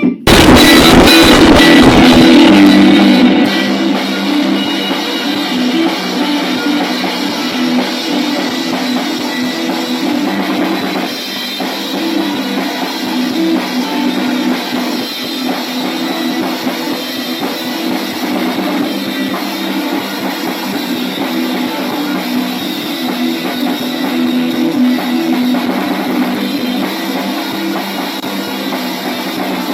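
Rock band demo recording: drum kit and guitar playing together, loudest for the first few seconds, then settling to a steady level.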